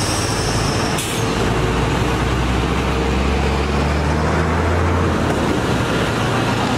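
Heavy diesel truck engines running at idle with a steady low drone. A hiss of compressed air cuts off sharply about a second in, and a deeper engine note holds from about one to five seconds in.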